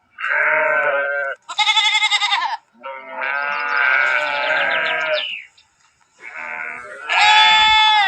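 Sheep bleating, about five separate calls of different pitches, one after another; one long wavering bleat in the middle and a loud, high-pitched bleat near the end.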